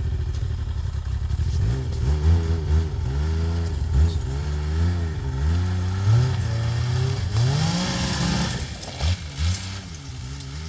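Snowmobile engine revving up and down over and over as the throttle is pulsed, then dropping back to a lower, quieter run near the end.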